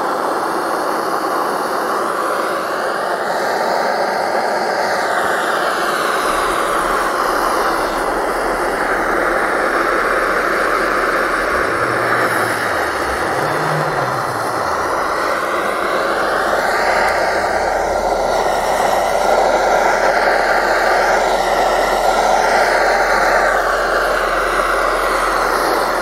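Handheld butane cartridge blowtorch burning with a steady hiss, its tone shifting slowly as it runs. The flame is heating a finned cylinder of an air-cooled VW Beetle engine to free the stuck cylinder.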